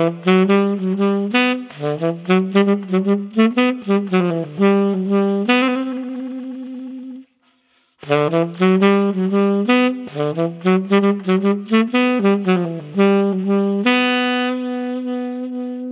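Tenor saxophone played through a Mouthpiece Cafe Espresso tenor mouthpiece, a Selmer Soloist-style hard-rubber piece with a 7* tip opening: two jazz phrases of quick notes, each ending on a held note, with a short break about seven seconds in.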